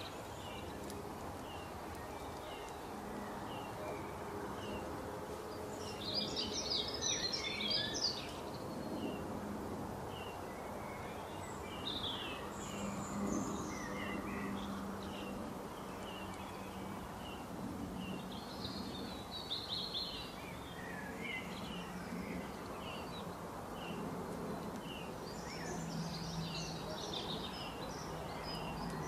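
Songbirds chirping and singing: a steady run of short high chirps, with brighter song phrases breaking in four times, over a faint steady low hum.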